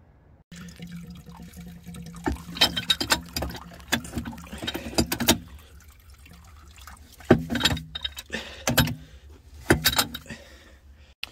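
Metal clanks and scrapes from a pipe wrench working the old brass irrigation master valve off its copper pipe, with muddy water splashing in the valve box. A faint steady low hum runs under the first half.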